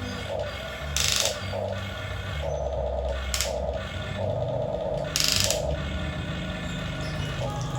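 Small electric gear motors of an RC excavator whirring in short stop-start runs as its parts are worked, with three brief, loud hiss-like bursts about a second, three seconds and five seconds in.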